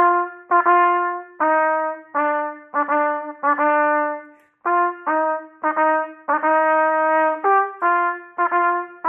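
Solo trumpet playing a run of dotted-eighth–sixteenth figures: each long note is preceded by a short, quick pickup note, moving between a few middle-register pitches.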